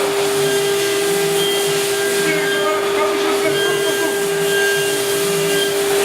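InfoTEC 3121 PRO CNC milling center running a milling cut: a steady machine whine holding one constant high tone over a hiss.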